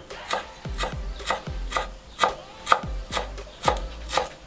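A cleaver chopping fresh dill on a wooden cutting board: a steady run of knocks of the blade on the board, about two a second.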